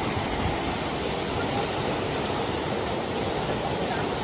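Fast mountain stream rushing over rocks through whitewater rapids: a steady, even rush of water.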